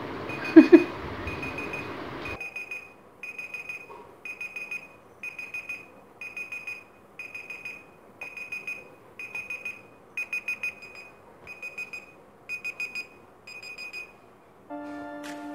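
Smartphone countdown-timer alarm going off: short clusters of rapid high beeps about once a second, stopping about a second before the end. A brief loud sound about half a second in.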